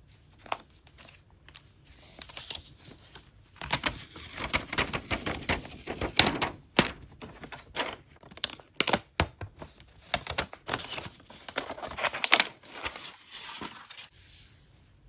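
Hands handling and opening product packaging: paper and card rustling and tearing, with a rapid, irregular run of clicks, taps and light knocks.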